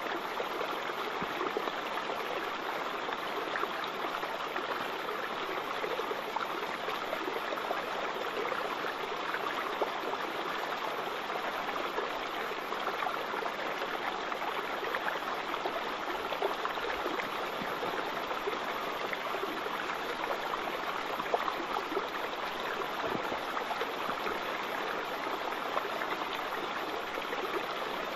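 Falling water rushing steadily in an unbroken splashing hiss, with no change in level.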